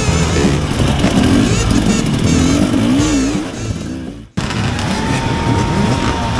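Dirt bike engines running and being revved, their pitch rising and falling. The sound drops out abruptly a little past four seconds in and comes back with a steadier, slowly falling engine tone.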